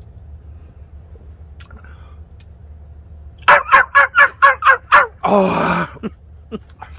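Comic sound effect of a small dog yipping: a quick run of about eight high yelps, each falling in pitch, followed by a harsh, rasping cry about a second long.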